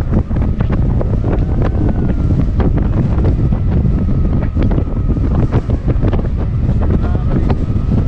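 Hurricane-force wind buffeting the microphone: loud, unbroken wind noise with many short crackles and pops.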